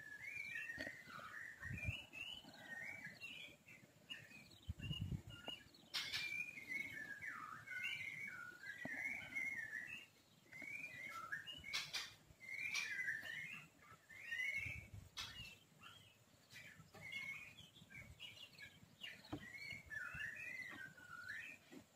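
A songbird singing faintly, a steady stream of quick, warbling phrases. A few sharp clicks occur about six and twelve seconds in.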